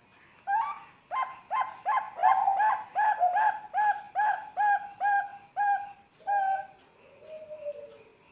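Young zebra dove (Bangkok perkutut) singing its cooing song: a quick run of about a dozen short, clear notes, a little more than two a second, followed by a softer falling coo near the end.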